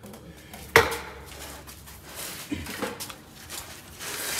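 Shop work noise: a single sharp, loud clank about a second in, then lighter knocks and scraping of tools and parts.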